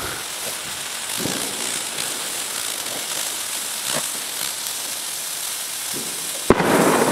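Joho Pyro Pooping Dog novelty firework burning, a steady hiss with faint crackles as its ash 'poop' is pushed out. About six and a half seconds in there is a sharp pop, followed by a louder burst of hissing.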